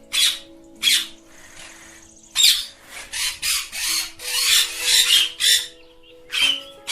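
Ringneck parrot screeching in short, harsh squawks: two single ones, then a quick run of about a dozen. Background music with held notes plays underneath.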